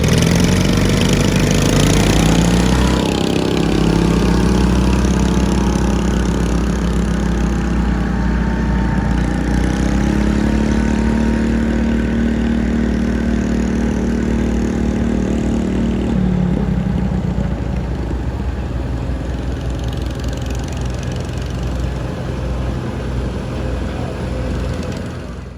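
Pulling lawnmower's engine revving up over the first few seconds, then running hard at steady high revs under load, with a shift in pitch about two-thirds of the way through.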